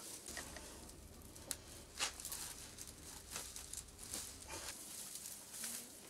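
Faint rustling and scratching of dry heather broom bristles, with a few light clicks, as wire is twisted round a bundle of handmade heather brooms to bind them.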